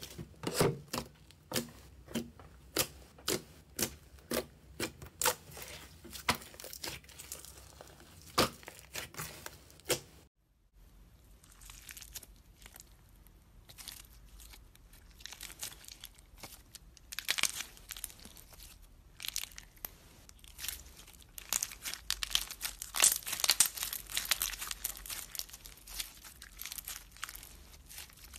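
Hands squeezing glossy slime, making sharp sticky clicks and pops of trapped air, two or three a second. After a short break about ten seconds in, clear slime packed with beads is stretched and squished, giving a dense crunchy crackle that grows louder near the end.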